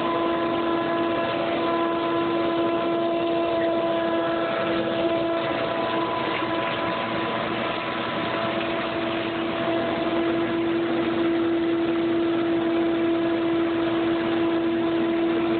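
A motor running steadily: a constant hum over a rushing noise.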